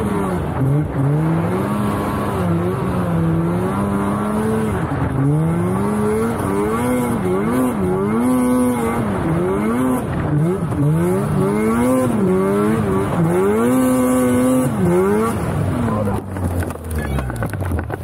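Two-stroke snowmobile engine running under a rider's throttle, its pitch repeatedly rising and falling every second or two as it speeds up and backs off. Near the end the pitch drops low as the engine slows.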